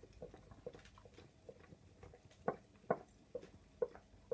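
Newfoundland dog lapping liquid from a drinking glass: a regular run of short wet laps, about two a second, growing stronger in the second half.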